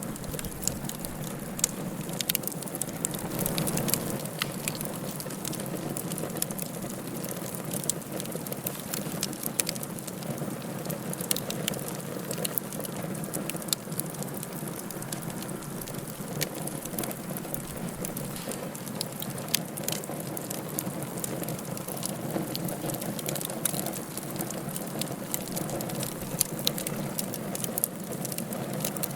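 Wood fire crackling in a fireplace: a steady hiss with many sharp pops and snaps scattered irregularly.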